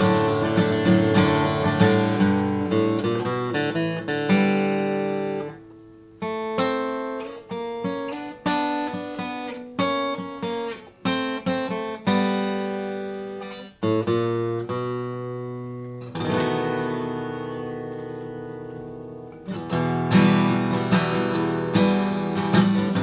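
Custom shop Martin Style 28 acoustic guitar, bearclaw Sitka spruce top with Madagascar rosewood back and sides, being strummed. About four seconds in the playing thins to single picked notes and chords left to ring, including one long chord dying away, and fuller strumming returns near the end.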